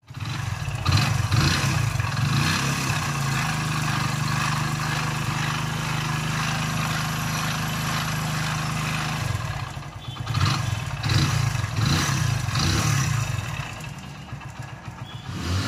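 Hero Splendor Pro's single-cylinder four-stroke engine idling steadily, then revved in several short blips about ten seconds in before easing back. This is the engine with the crank noise the mechanic calls very loud.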